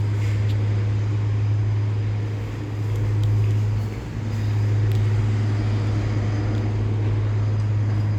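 A steady, loud low hum, dipping briefly about four seconds in.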